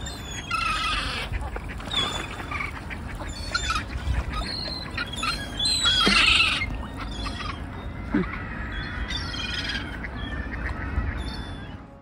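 A flock of gulls and ducks calling in many short, overlapping cries as they crowd in for food on the water, loudest about halfway through.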